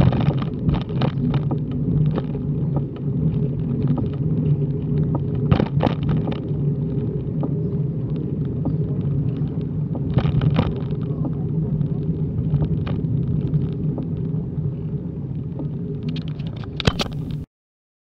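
Road rumble and wind buffeting on a handlebar-mounted action camera as a road bike rolls at speed, with a few short crackles; the sound cuts off suddenly near the end.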